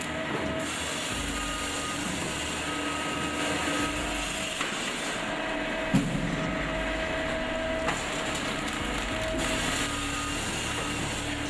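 Firewood processor at work: a steady machine drone with logs being sawn and split, and a sharp knock of wood about six seconds in.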